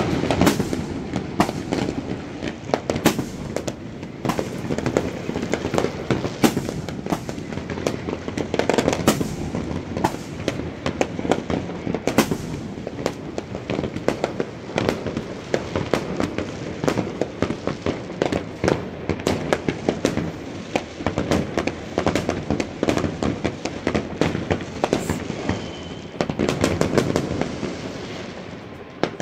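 Fireworks going off: a dense, unbroken run of sharp bangs and crackles, with louder reports standing out every second or so.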